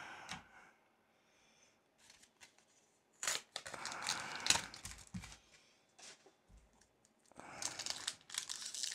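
Cardboard sleeve packaging of a Pokémon card booster pack being torn open by hand: ripping and crinkling in two spells, about three seconds in and again near the end.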